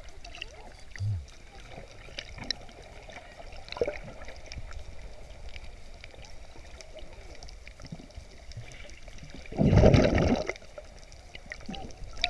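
Water sloshing and bubbling around a camera held just under the surface, muffled, with scattered small clicks. About ten seconds in comes a loud rush of water lasting nearly a second.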